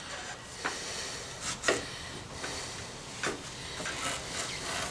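A few scattered light knocks and rubbing sounds as a motorcycle's rear wheel is handled and rolled out of the swingarm.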